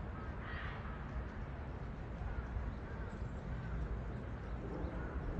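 Outdoor ambience: a steady low wind rumble on the microphone, with a few faint, short bird chirps.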